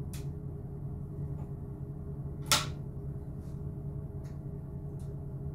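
Steady low hum of a BLS RBDe 566 railcar heard in its driver's cab. A sharp click comes about halfway through, with a few fainter ticks scattered around it.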